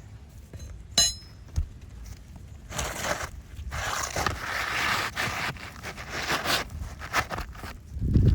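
Hand work on an asphalt shingle roof: a sharp metallic clink about a second in, then a few seconds of uneven scraping and rustling, and a low thump near the end.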